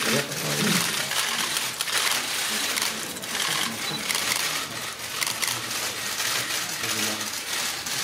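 Many press cameras' shutters firing in rapid, overlapping bursts, a dense stream of clicks.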